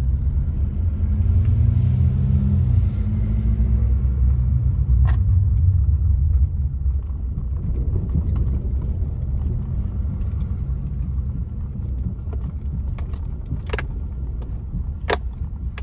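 Pickup truck driving, heard from inside the cab: a steady low engine and road rumble, with the engine note rising as it speeds up in the first few seconds. A few sharp clicks come later.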